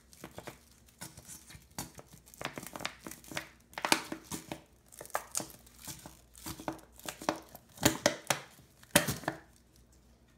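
Hands crumbling and sprinkling minced garlic over a metal baking tray of raw cut vegetables: irregular crinkling rustles and short clicks, with a few sharper clicks between about 4 and 9 seconds in.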